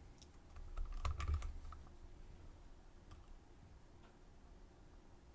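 Small sharp clicks and taps of a padlock and lock-picking tools being handled, bunched together with a soft bump in the first two seconds, then a few scattered clicks.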